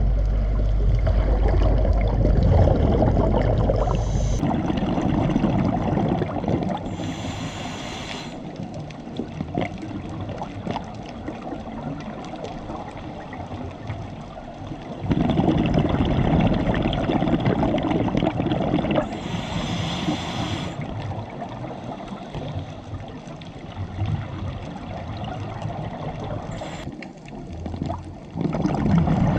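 Scuba regulator breathing heard underwater: long bubbling rushes of exhaled air, with two short hissing inhales, about a quarter and two thirds of the way through.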